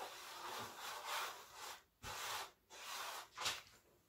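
Faint rubbing of a hand sweeping flour across a silicone baking mat: one long stroke, then a few shorter ones.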